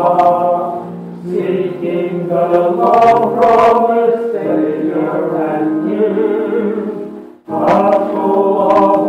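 Choir singing a passage of a Christmas cantata, the voices breaking off briefly about seven and a half seconds in and then coming back in.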